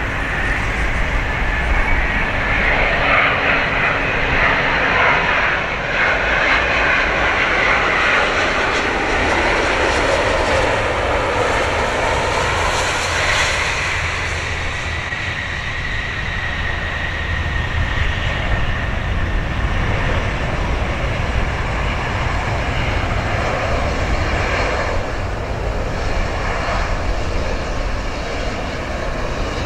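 Airbus A350-900 airliner's Rolls-Royce Trent XWB engines through a landing, heard as a steady jet rush with a fan whine. The whine is loudest about halfway through, as the jet passes, then slowly falls in pitch as it rolls away down the runway.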